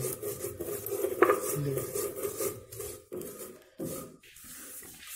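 Stone roller (batta) grating back and forth on a flat stone grinding slab (sil), coarsely crushing fennel seeds. The grinding stops about three seconds in.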